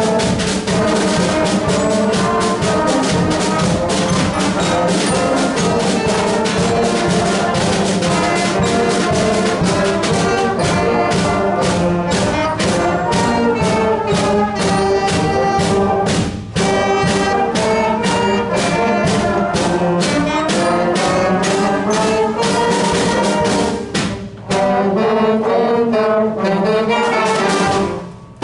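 Beginner school concert band playing a lively piece, brass to the fore over a steady beat on the drums. The sound dips briefly twice, about 16 and 24 seconds in, and drops away sharply just before the end.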